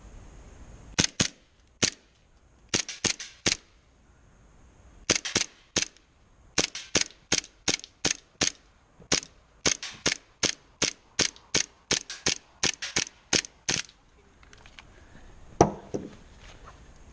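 Airsoft gun firing rapid single shots, sharp cracks in short strings of two to four and then a longer run of about two to three shots a second. Near the end comes one heavier thump.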